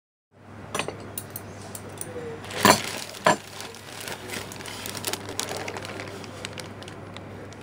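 Packaging and a plastic extension cord being handled and unboxed: scattered clicks, taps and rustles, with two sharper knocks about half a second apart around the middle, over a steady low hum.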